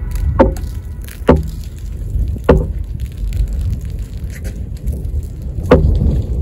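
Wind buffeting the microphone in a steady low rumble, broken by four sharp knocks.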